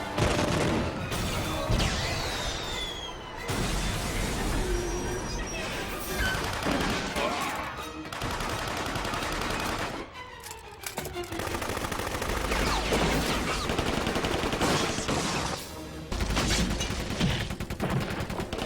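Rapid gunfire from a cartoon battle soundtrack, with background music under it. The shooting is dense, with a brief lull about ten seconds in.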